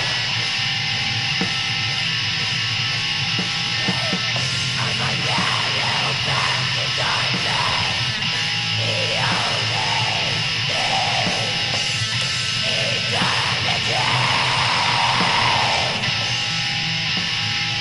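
Black metal demo recording: distorted electric guitars and drums playing on steadily, with harsh shrieked vocals over most of the middle stretch.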